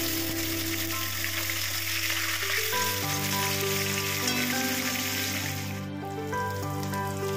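Rohu fish steaks sizzling steadily as they shallow-fry in hot oil in a kadai. The sizzle cuts out for a moment about six seconds in and comes back fainter.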